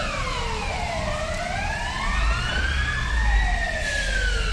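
Two emergency-vehicle sirens wailing at once, each rising and falling slowly over two to three seconds and out of step with the other, over a low rumble.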